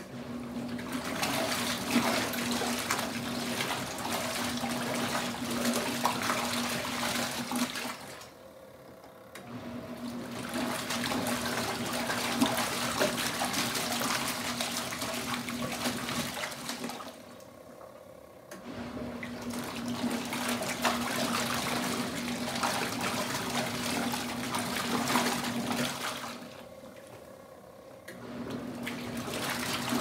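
Wash tub of a Kuppet twin-tub portable washing machine agitating a load of towels: motor hum and water sloshing. It runs about eight seconds at a time and stops briefly three times, as the wash pulsator pauses and reverses direction.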